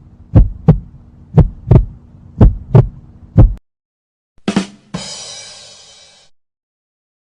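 Heartbeat sound effect: paired lub-dub thumps about once a second over a low hum, stopping about three and a half seconds in. Then a short hit and a bright, hissy ringing sound that fades out over about a second and a half.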